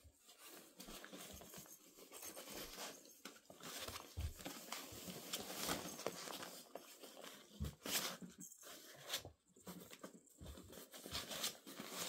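Irish terrier puppies scuffling in play: paws scrabbling and pattering on a rug, blankets and a fabric play tunnel. The result is a fairly quiet, continuous rustling broken by many irregular small knocks and thumps.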